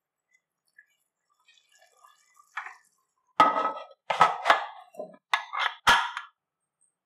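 Pressure cooker lid being put on and closed, then the whistle weight set on its vent: a quick run of loud metal clanks and clinks starting about three and a half seconds in, after a near-quiet start.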